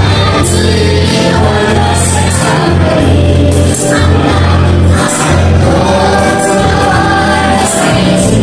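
A group singing a Christian praise song together, led on a microphone, over an amplified backing track with a steady beat.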